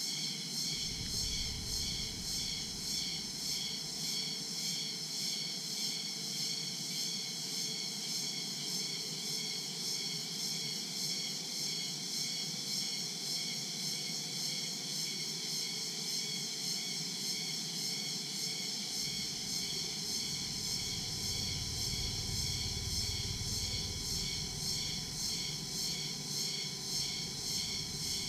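Daytime chorus of crickets and other insects, a dense high-pitched trilling that pulses at an even, rapid rhythm, over a faint low rumble.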